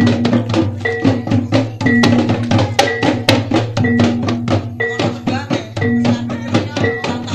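Small double-headed hand drums of the Tulungagung reog dance, beaten by hand in a fast, even rhythm of several strokes a second. A pitched note recurs about once a second over the drumming.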